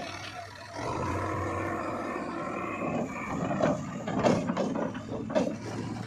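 JCB 3DX backhoe loader's diesel engine running, with a cluster of sharp knocks and rattles through the second half.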